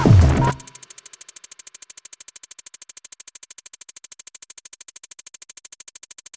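Electronic music with a drum-machine beat that stops about half a second in, followed by a quieter, fast, even synth pulse of about a dozen beats a second.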